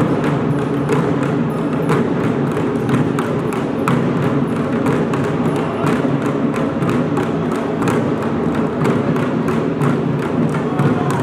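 Live Korean folk percussion music: a steady, quick run of sharp strokes, several a second, over a dense low din.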